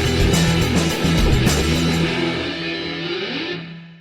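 Distorted electric guitar rock music with a heavy low end, fading out over the last couple of seconds.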